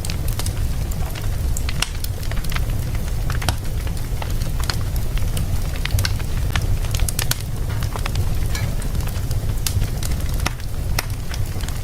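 Wood fire in a fireplace crackling, with many sharp, irregular pops and snaps over a steady low rumble of the flames.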